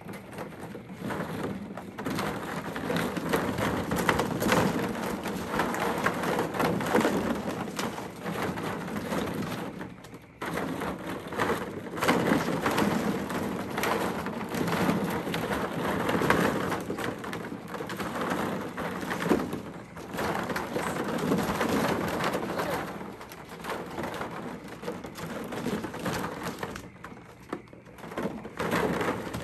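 Plastic ball-pit balls clattering against each other and the hard plastic wading pool as Golden Retriever puppies scramble through them, a dense rattling patter that sounds much like rain. It eases briefly about ten seconds in and again near the end.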